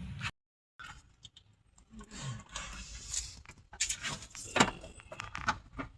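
Small hard metal pieces clinking and jangling in a quick, irregular string of clicks, louder and busier in the second half.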